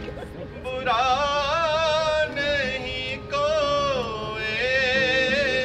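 A solo voice singing long held notes with vibrato, in three phrases; the third phrase begins with a falling glide.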